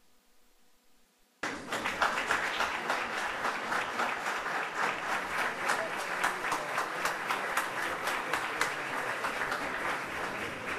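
Near silence, then an audience's applause starts abruptly about a second and a half in and keeps going steadily.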